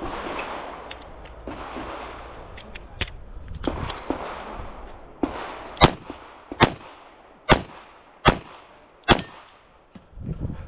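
Handgun shots: a few fainter cracks first, then five loud shots in steady succession, roughly 0.8 s apart, near the end.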